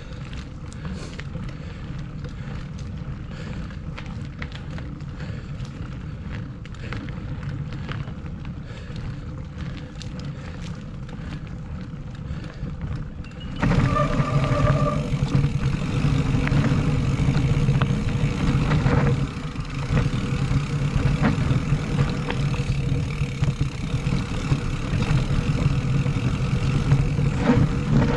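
Mountain bike ridden along a trail, heard from an action camera on the bike or rider: tyres rolling over the surface, the bike rattling, and wind on the microphone. About halfway through it turns abruptly louder and fuller, as the ride moves from a cracked concrete path onto dirt singletrack.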